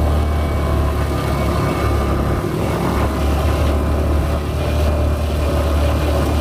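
Engine of a small off-road vehicle running steadily while being ridden along a trail, with a heavy low rumble that holds without a break.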